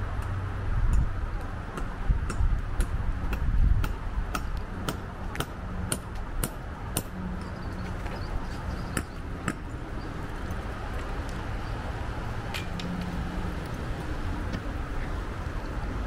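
Wind buffeting the microphone as a gusty low rumble, heaviest in the first few seconds. Over it, footsteps on pavement at about two steps a second stop around ten seconds in, with a couple more later.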